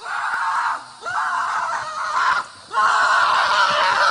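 Three long, loud screams, one after another, with short breaks between them.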